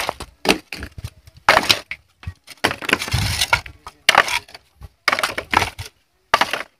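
Clay roof tiles clattering and wooden roof battens cracking and scraping as they are pulled apart by hand, in short irregular knocks with brief gaps between them.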